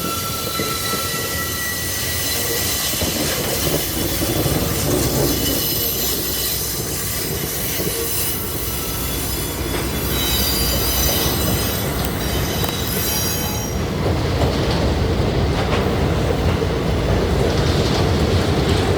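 Long freight train rolling past close by, with a steady rumble and clatter of wagons and wheels squealing in several high tones. The squeal dies away about fourteen seconds in, leaving the rumble and rattle of the passing cars.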